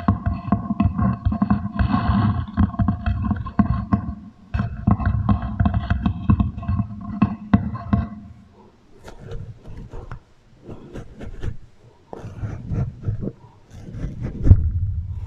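Beeswax wrap crinkled and rubbed against a microphone and wooden table, fed through a heavy echo effect: dense crackling with a steady ringing tone for about eight seconds, then sparser, separate crackles and clicks.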